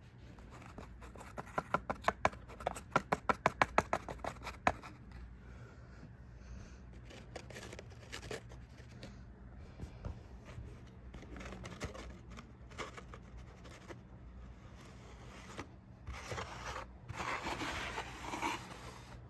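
Paper-craft bus models being handled and slid across a cloth tabletop. A quick run of light taps, about four or five a second, comes a second or so in and stops near five seconds. Soft scraping and rustling follow, with a louder stretch of rustling near the end.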